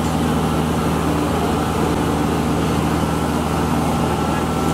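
An engine idling steadily, a low even running sound that does not change in pitch or loudness.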